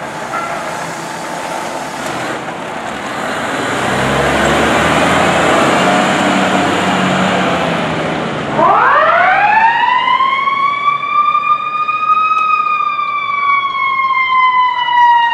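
Fire ladder truck's engine running as it pulls away, then about halfway through its siren winds up in pitch, peaks and slowly winds back down.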